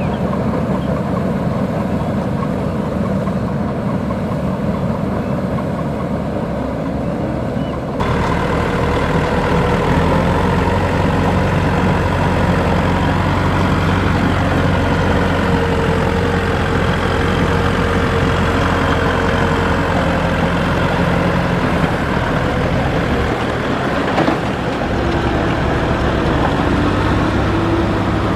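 Kubota DC-105X rice combine harvester's diesel engine running steadily, with an abrupt change in the sound about eight seconds in and a low steady hum after it.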